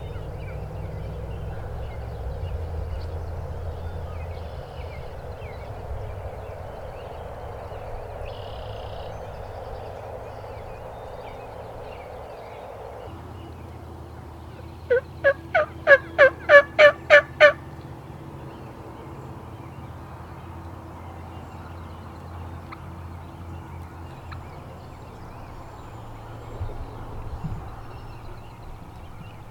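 A tom turkey gobbling once, about halfway through: a fast run of about nine pitched notes lasting some two and a half seconds, over a steady low background hiss.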